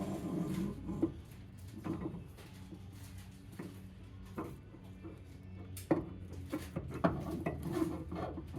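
Scattered clinks and knocks of hand tools and metal parts being handled during hub and knuckle work, over a steady low hum.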